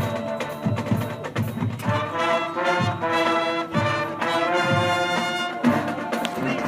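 High school marching band playing: percussion strokes throughout, with the brass section coming in about two seconds in on held chords that break off near the end.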